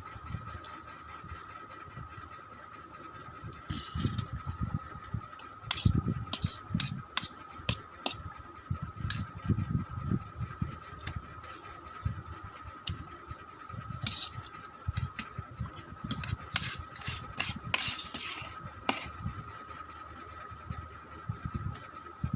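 Close-miked eating of Maggi instant noodles: low, irregular chewing and mouth noise with sharp wet clicks and smacks in clusters, over a steady faint high-pitched tone.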